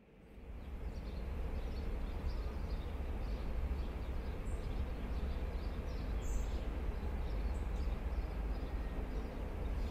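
City ambience fading in: a steady low rumble of distant traffic with small birds chirping over it.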